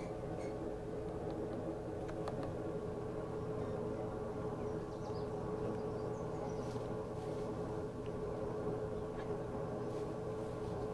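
A steady machine hum holding one strong tone with fainter tones around it, and a few faint clicks.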